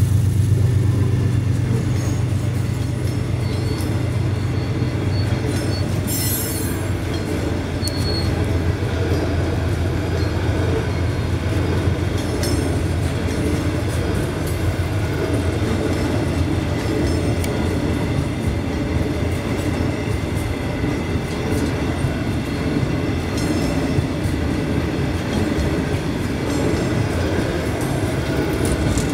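Narrow-gauge freight wagons loaded with tank containers rolling past close by: a steady rumble and rattle of wheels on rail, with a few brief high wheel squeals about six to seven seconds in. A low engine drone from the passing locomotive fades over the first few seconds.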